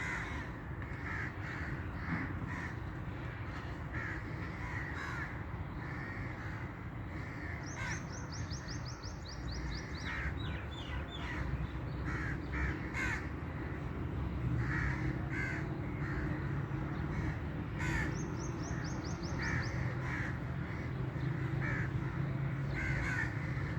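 Birds calling outdoors: repeated short harsh calls throughout, with a rapid run of high ticks about 8 seconds in and again about 18 seconds in, over a steady low hum.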